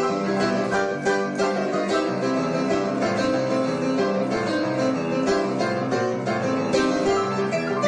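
Instrumental music at a steady level: quick plucked-string notes over held chords.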